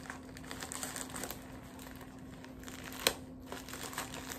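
White plastic mailer bag crinkling and rustling as it is pulled and torn open by hand, with one sharp snap about three seconds in.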